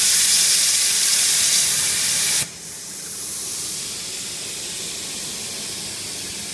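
CNC plasma torch cutting steel plate, a loud, even hiss. It cuts off suddenly about two and a half seconds in as the arc goes out, leaving a quieter steady hiss.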